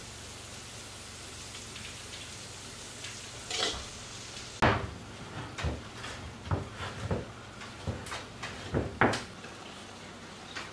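Kitchenware knocking against a glass mixing bowl as flour is worked into a batter for dough: a soft rustle a few seconds in, then about eight sharp, uneven knocks and clinks.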